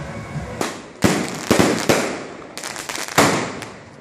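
Fireworks going off: a string of about seven sharp bangs at uneven spacing, each trailing off quickly, the loudest about a second in and just after three seconds.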